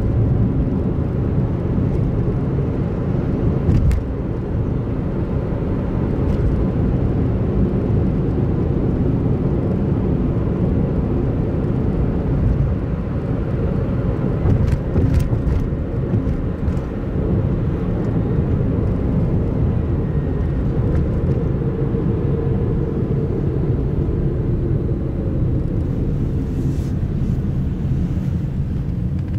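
Car driving at steady speed on a highway: a continuous low rumble of road and engine noise.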